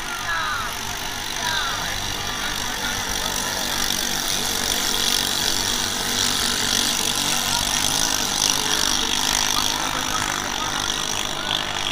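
Engines of racing drag boats running flat out as the boats speed down the river, a steady noisy drone that swells in the middle, with crowd voices over it near the start and end.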